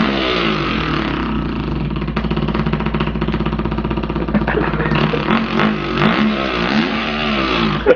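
A man imitating a two-stroke dirt bike engine with his mouth: a continuous buzzing, sputtering drone that rises and falls in pitch like an engine being revved.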